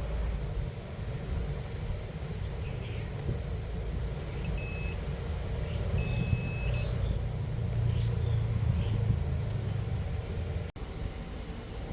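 A vehicle engine running with a steady low rumble, and two short high electronic beeps in the middle, the second one longer.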